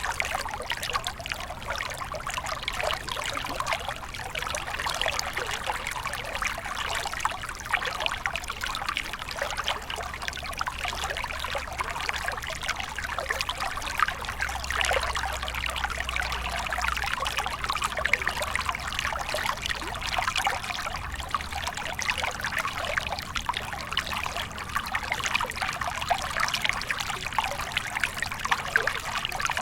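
Small stream flowing and trickling steadily over stones, a dense busy babble of little splashes.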